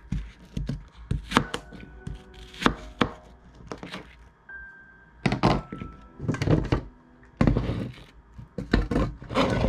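A knife chopping apples on a cutting board: irregular knocks and short cutting strokes, busiest in the second half, with quiet background music.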